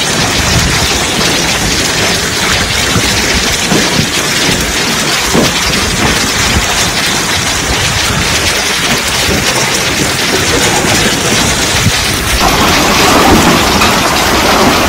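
Heavy rain and hail pelting a car's windscreen and roof, heard from inside the car as a loud, dense drumming that grows louder about twelve seconds in.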